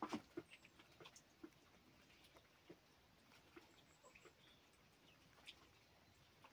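Very faint scene with scattered irregular clicks and ticks, a small cluster of louder ones right at the start, and a few brief high chirps of small birds in the background.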